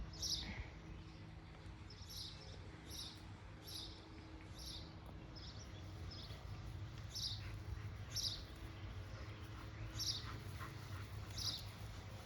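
A bird chirping, short high chirps repeating about once a second, over a steady low rumble.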